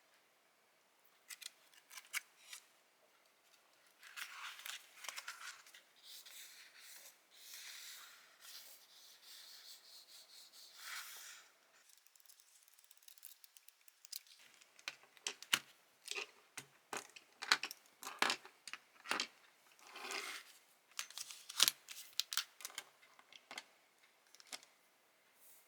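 Paper crafting at a desk: a stretch of continuous rubbing and rustling of paper, then a quick run of sharp snips and clicks like scissors cutting paper or stickers.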